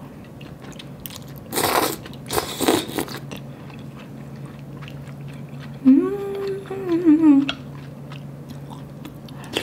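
Close-up eating sounds: cold buckwheat noodles slurped in two quick pulls, about one and a half and two and a half seconds in, then chewing with small wet mouth clicks. A hummed "mmm" of enjoyment, rising and falling, comes about six seconds in.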